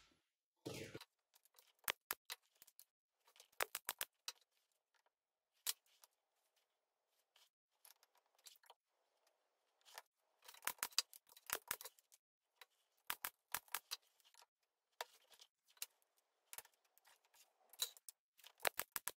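Light, scattered clicks and taps as small wooden blocks and square steel tubing are handled and set down on a board, coming in short clusters with quiet gaps between.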